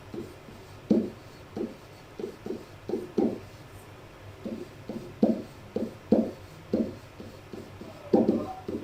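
Handwriting: a run of short, irregular, dull strokes and taps of a pen on a writing surface, with a few slightly louder strokes near the end.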